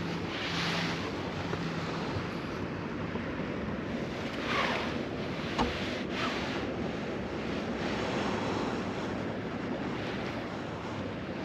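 Sea surf washing onto a sandy beach, a steady rush with a few louder surges, mixed with wind buffeting the microphone.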